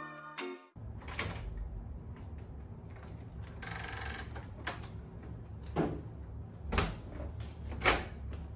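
Hotel room door opened and a wheeled suitcase brought in: a short hiss about four seconds in, then three knocks and thumps about a second apart, the last the loudest. A steady low room hum runs underneath.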